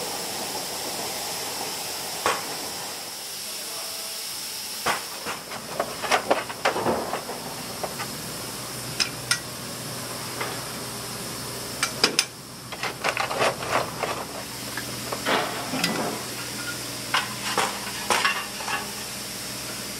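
Steady hiss of steam from a Double Fairlie steam locomotive's boiler under steam. From about five seconds in come irregular metallic clanks and scrapes as coal is shovelled into the firebox.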